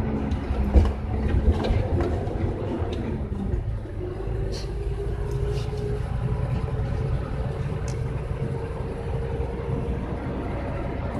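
In-cab sound of a Hino 500 FM260TI truck driving on a rough dirt road: the diesel engine running steadily, with rattling and a few sharp knocks from the cab and the load in the first few seconds. The engine note shifts about four seconds in.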